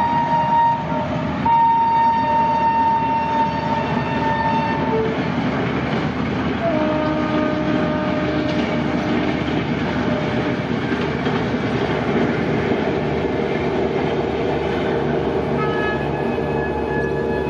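WAP7 electric locomotive sounding its horn: a short blast, then a long one ending about five seconds in. After that the train runs past with a steady rumble and clatter of wheels on the rails.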